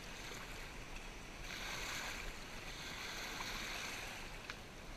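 Small lake waves lapping and washing against a sailboat hull and a rocky shore, a steady wash that swells about a second and a half in, with a faint click near the end.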